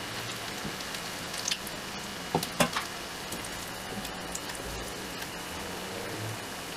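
Batter-coated raw banana slices (banana bajji) deep-frying in hot oil in an iron kadai: a steady sizzle. A few sharp clicks come about two and a half seconds in.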